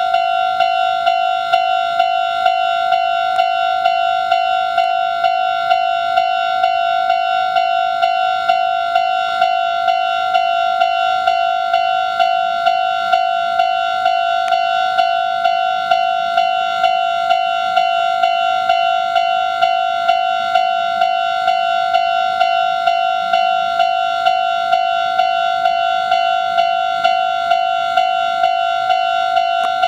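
Japanese railway level-crossing alarm ringing: an electronic bell tone struck over and over at just under two strokes a second, warning that a train is coming.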